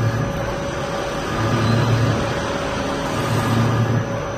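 ALCK6160X1500 CNC lathe running with its chuck spinning a metal shaft: a steady machine whine with a low hum that swells and fades about every two seconds.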